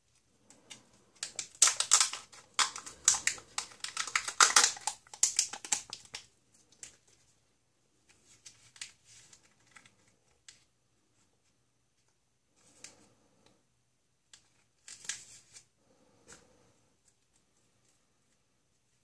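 Plastic Kinder Joy egg and its peel-off seal being handled and opened by hand: a dense run of crinkling and sharp plastic clicks for about four seconds, then scattered small clicks and rustles.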